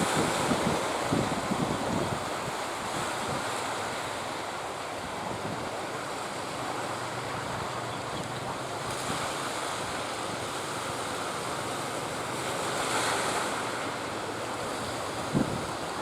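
Sea surf breaking under a strong wind, with gusts buffeting the microphone; a single short knock near the end.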